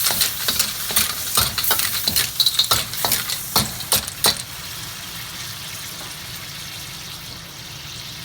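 Clams in their shells sizzling in a pan of garlic butter, with quick clicks and clinks of shells and utensil against the pan as they are stirred for about the first four seconds, then only the steady sizzle.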